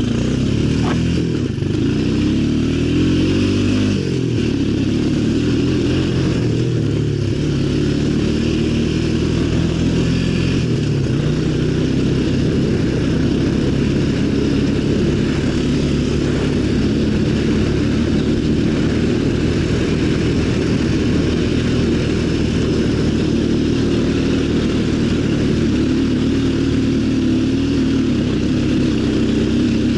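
ATV engine running under way: its pitch rises and falls several times in the first ten seconds or so as it picks up speed, then holds at a fairly steady speed.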